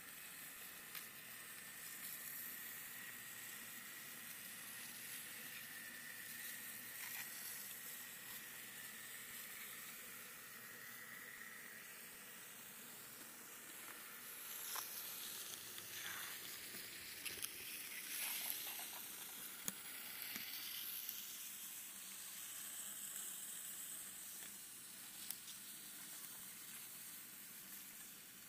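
N scale model train running on its track, heard faintly from a camera riding on it: a steady hiss with a thin high whine in the first half, and a few light clicks in the second half.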